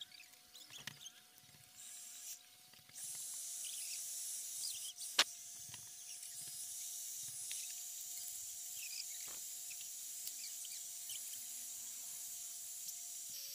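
Handheld hair dryer blowing with a steady airy hiss; it comes on about three seconds in. A sharp click is heard about five seconds in.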